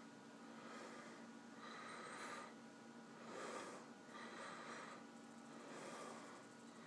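Faint breathing close to the microphone, a soft swell of breath about every second and a half over a low steady hum.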